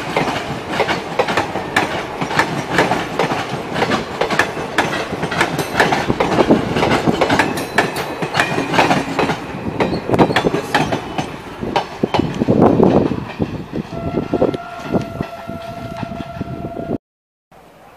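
Blue Indian Railways passenger coaches passing close at speed, their wheels clattering over rail joints in a dense run of clicks over a rumble that eases off toward the end. Near the end a steady train horn note holds for about three seconds.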